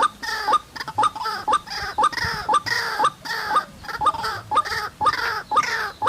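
White-breasted waterhen (ruak-ruak) calling over and over, about twice a second: each call is a sharp click followed by a short falling note.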